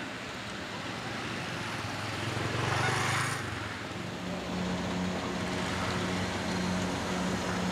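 Street traffic: a vehicle passes close, louder about three seconds in, then a car engine runs with a steady hum.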